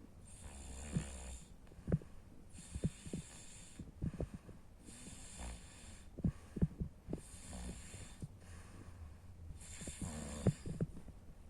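A person snoring in sleep, about five snores at an even pace of one every two and a half seconds, each a raspy in-breath with a low rumble. Short sharp clicks fall between the snores.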